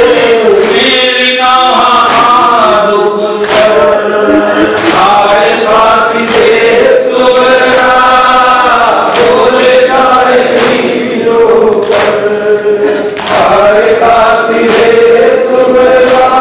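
Men chanting a Muharram noha (lament) through microphones, long held notes rising and falling, with a regular beat of sharp strikes about once a second.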